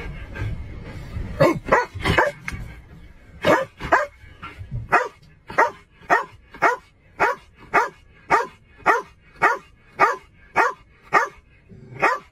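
Police K-9 dog barking: a few scattered barks, then from about five seconds in a steady run of sharp barks at roughly two a second.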